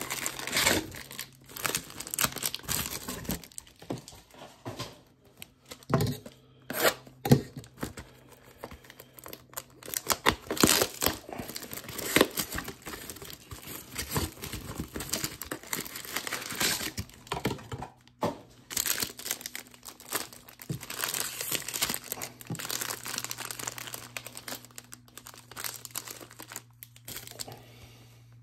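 Trading-card packaging (blaster box wrap and pack wrappers) crinkling and tearing in irregular rustling bursts as the boxes are opened by hand.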